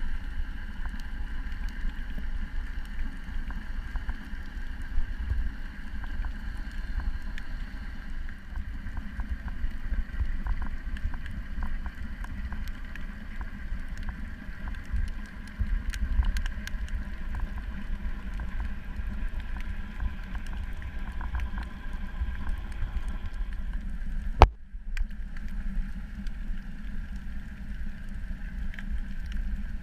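Underwater sound picked up by a diving camera: a steady low rumble with a constant hum and scattered crackling clicks. A single sharp click comes near the end, followed by a brief dropout.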